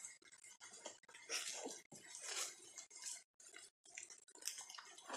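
Faint, irregular rustling and crunching of footsteps moving through dry-leaf litter and over fallen branches on a forest floor.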